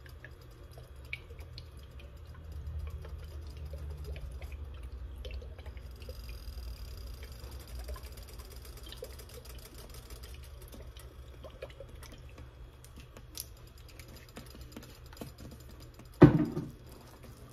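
Louisiana hot sauce being shaken from its bottle into a skillet of warm shrimp and crab dip: faint drips and small clicks over a low steady hum, with one sharp knock near the end.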